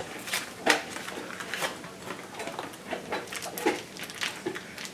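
Scattered light clicks and knocks of kitchen containers, dishes and utensils being handled on a counter.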